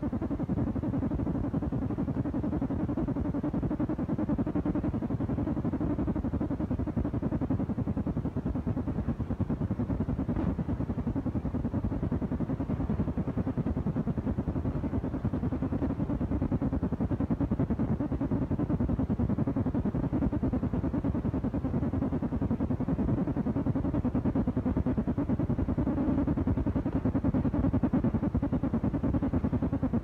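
An engine running steadily at an even speed, with no change in pitch or loudness.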